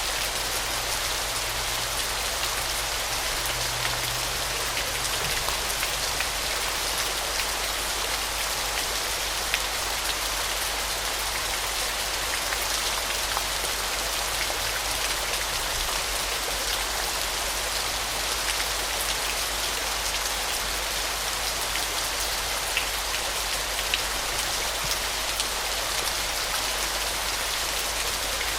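Waterfall: a steady, even rush of falling and splashing water, dense with fine pattering droplets.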